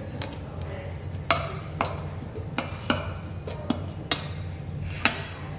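Metal spoon clinking and scraping against a stainless steel puppy saucer bowl while mashing soaked kibble into mush. It makes irregular sharp clicks, a couple a second.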